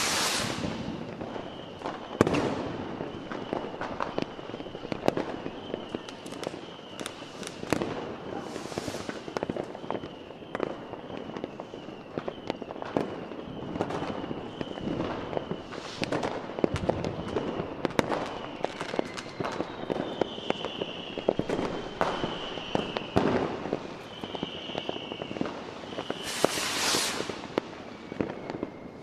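Aerial firework shells bursting one after another in a dense series of bangs, with several longer crackling bursts, the loudest near the end.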